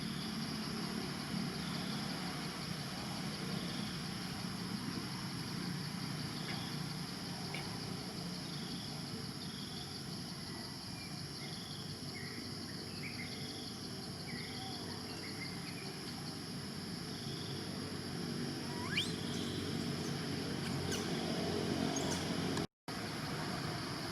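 Outdoor ambience: a steady high insect drone, with short chirps repeating about every second and a half and a few other bird-like calls. A single rising whistle comes about two-thirds of the way through, and the sound cuts out for a moment near the end.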